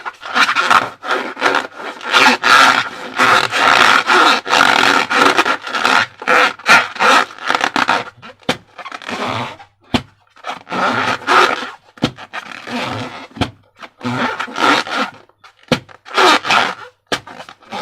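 Slime being squeezed and worked inside a transparent rubber balloon, giving a run of rubbing, squelching strokes. The strokes are dense for the first half, then come apart into separate strokes with short gaps.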